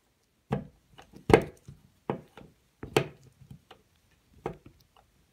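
Irregular sharp knocks and clicks as a plastic low-voltage old-work bracket is set into a drywall cutout and its clamp screws are turned with a Phillips screwdriver, swinging its ears out to grip the sheetrock. The loudest knock comes about a second in.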